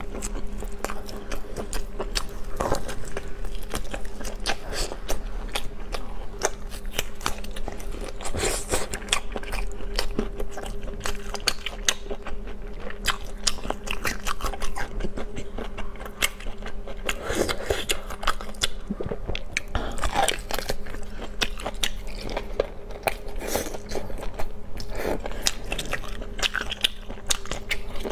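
Close-miked chewing and biting of food, with many crisp, crunchy clicks from the mouth throughout. A steady low hum runs underneath.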